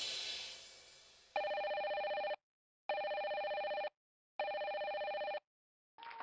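Music fades out, then a telephone rings three times. Each ring is a trilling tone about a second long, with half-second pauses between.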